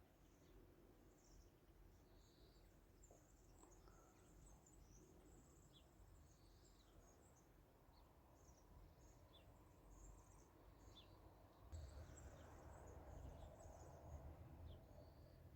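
Faint ambience of small birds chirping now and then, short high calls scattered through, over a low rumble that gets louder about twelve seconds in.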